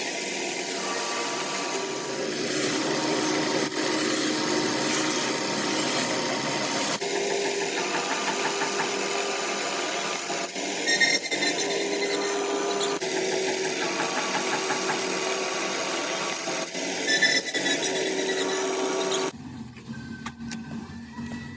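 Metalworking machine running, with steady motor tones under a harsh high hiss. About nineteen seconds in, the sound drops abruptly to a quieter, lower one.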